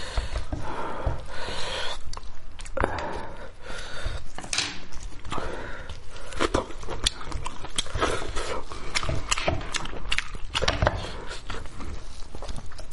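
Close-miked chewing and lip-smacking on stewed head meat, with irregular wet clicks and smacks.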